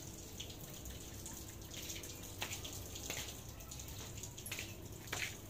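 Water dripping and splashing onto wet paving, a steady patter of irregular drops.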